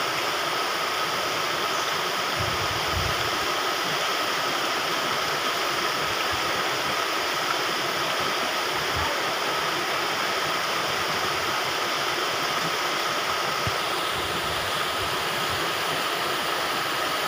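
Muddy floodwater rushing across a road and churning over its edge: a steady, unbroken rush of water.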